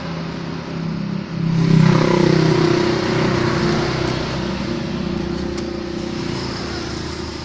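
An engine running steadily, growing louder about two seconds in and then easing slightly.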